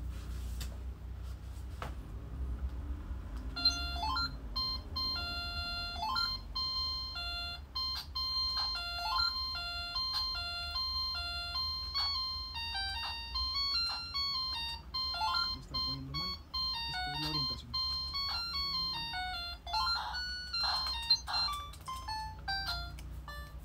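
A simple electronic melody of short, clean beeping notes stepping up and down, like a ringtone tune, starting a few seconds in and playing on, over a steady low hum.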